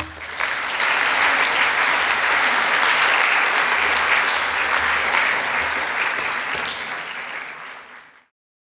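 Audience applauding, steady for about six seconds, then dying away and cutting off abruptly near the end.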